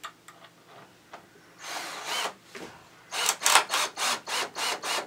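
Power drill driving a screw into pallet wood: one short run about two seconds in, then the trigger worked in quick bursts, about three a second, from about three seconds in.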